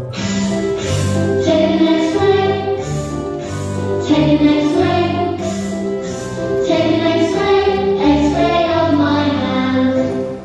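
A recorded children's phonics song for the letter x, sung by voices over a musical accompaniment.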